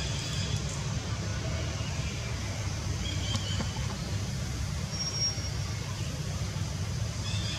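Steady low outdoor rumble, with a few brief high chirps about three and five seconds in.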